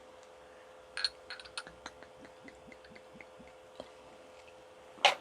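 Small glass clinks and taps as a soju bottle and glass are handled: a sharp clink about a second in, a run of light ticks after it, and a louder clink near the end.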